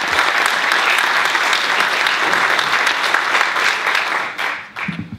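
Audience applauding in a theatre: dense, steady clapping from a large crowd that dies away about four and a half seconds in.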